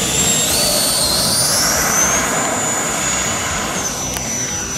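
FMS Super Scorpion's 90mm electric ducted fan whining at full throttle on the takeoff run and climb-out. The high whine rises in pitch over the first couple of seconds as the fan spools up, then holds steady.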